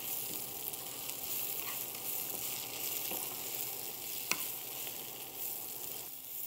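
Spinach sizzling in sesame oil in a frying pan while a wooden spatula stirs and turns it, a steady hiss with a single sharp tap about four seconds in.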